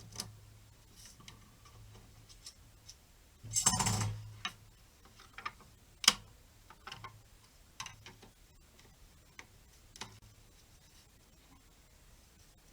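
Workshop handling noises of wooden pieces and tools: scattered light taps and knocks over a faint low hum, with a short rasping rush about three and a half seconds in and a sharp knock about six seconds in.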